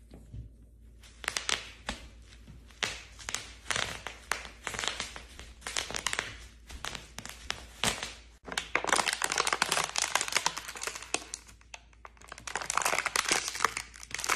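Bubble wrap crinkling and popping under pointe shoes: many sharp pops, scattered at first, then coming thick and fast through the second half.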